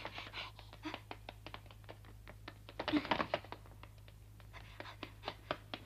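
Running footsteps of several people: a quick, irregular patter of sharp taps.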